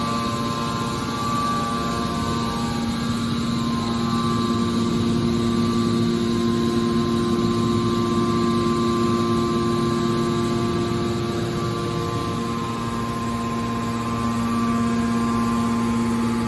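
Metal baler machine running: a steady machine hum with several held tones. The lowest tone weakens for a few seconds about twelve seconds in, then returns.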